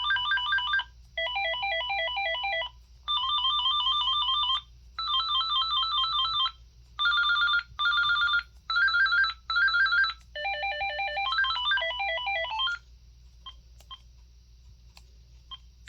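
An AT&T 5.8 GHz cordless phone handset playing about eight of its electronic ringer melodies one after another. Each is a short burst of beeping notes, cut off after a second or so, as the ringtone choices are stepped through. Near the end the melodies stop and only a few faint key clicks are heard.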